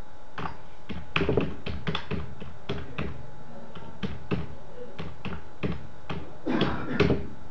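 Typing on a computer keyboard: a run of irregular key clicks, several a second, as numbers and the Enter key are keyed in.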